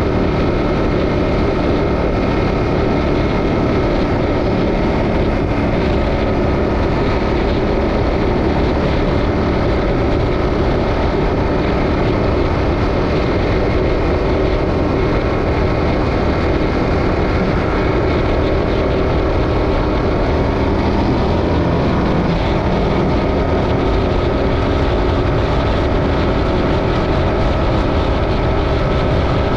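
Yamaha Ténéré 700's 689 cc parallel-twin engine running steadily at highway speed under a broad rush of wind and road noise. The engine note shifts briefly about two-thirds of the way through.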